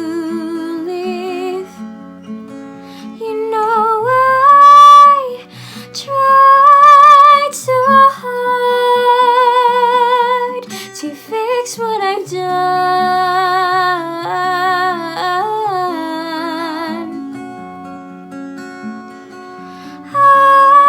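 A woman singing a slow melody with strong vibrato over plucked acoustic guitar.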